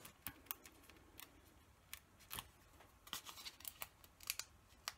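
Faint, irregular clicks and crinkles of card being handled as the paper backings are peeled off small foam adhesive pads stuck to a piece of cardstock.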